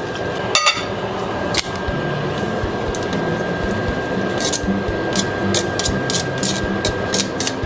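Cooking in a stainless steel pan: a steady hiss with a couple of sharp knocks early on, then a quick run of light clicks in the second half as cooked fettuccine is tipped from a metal strainer into the pan and stirred with a wooden spoon.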